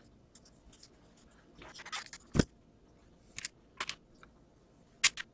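Plastic RC truck chassis parts and an aluminum frame rail being handled and set down on a workbench: scattered clicks and light knocks, with a brief rustle about two seconds in and the loudest knock soon after.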